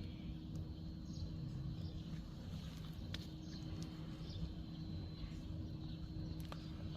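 Quiet outdoor ambience: a steady low rumble with a faint steady hum, and a few faint scattered clicks and short chirps.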